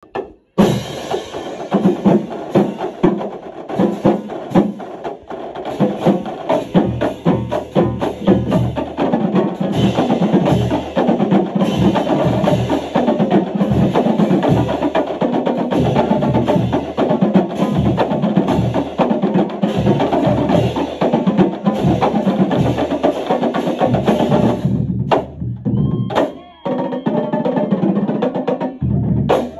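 High school marching drumline of snare drums, tenor drums, bass drums and cymbals playing a fast cadence in a hallway. The playing breaks off about 25 seconds in, leaving a few single hits, then starts again just before the end.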